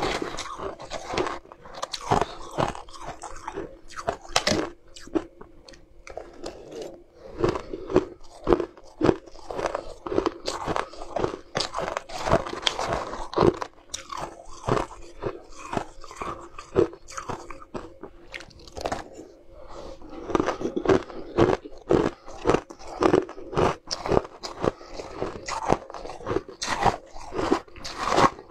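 Crushed ice being bitten and chewed close to the microphone: a long, irregular run of crisp crunches, several a second.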